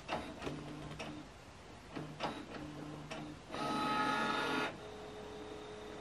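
Canon PIXMA MG2551S inkjet printer's mechanism at work, scanning the print head alignment sheet: clicks and two short motor whirs, then a louder motor whine for about a second past the middle, settling into a steady faint hum.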